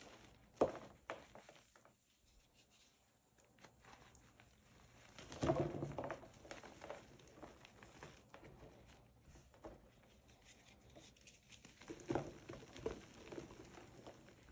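Reformed gym chalk being crushed and sifted by hand: soft crunching and crackling, with powder and small crumbs pattering back onto the pile. It comes in bursts just after the start, about five and a half seconds in (the loudest), and around twelve seconds, with quieter sifting between.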